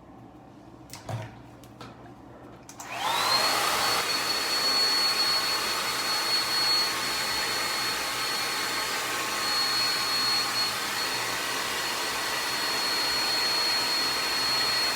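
Handheld blow dryer switched on about three seconds in, its motor whine rising quickly to a high steady pitch over a steady rush of air, drying the glue that holds the wig's lace front down. A couple of faint clicks come just before it starts.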